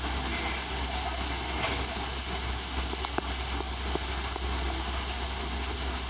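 Steady low rumble of outdoor background noise with an even hiss and a thin, constant high tone, broken by a few faint clicks midway through.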